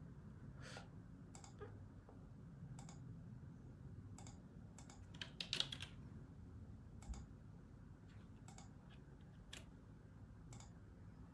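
Computer keyboard keys tapped in sparse, irregular clicks, with a quick flurry about five seconds in, over a faint low room hum.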